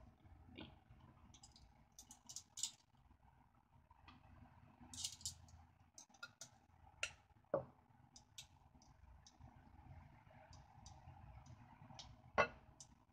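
Faint, scattered clicks and light knocks of metal kitchen tongs and food containers against an earthenware donabe pot while ingredients are placed in it. There is a sharper knock about halfway through and another near the end.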